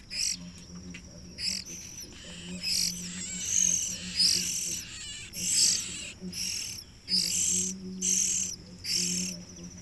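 Hand-reared songbird chicks begging for food, giving high, harsh calls in about a dozen irregular bursts, some with short pitch glides.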